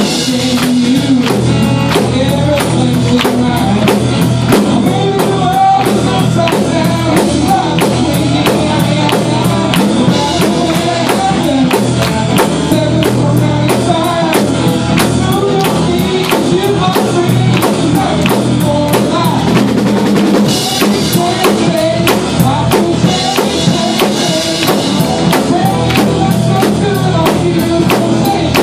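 Live band playing an upbeat pop-rock song: a drum kit keeps a steady, fast beat under electric guitars, bass and vocals.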